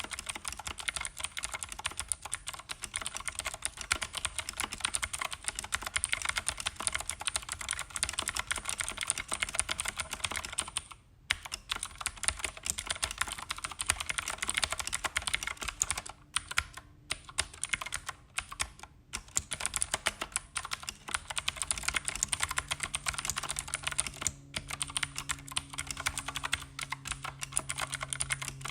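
Fast, continuous typing on a Keychron K8 tenkeyless mechanical keyboard with clicky Keychron blue switches, a dense run of sharp key clicks broken by a brief pause about eleven seconds in and a few short gaps a little later.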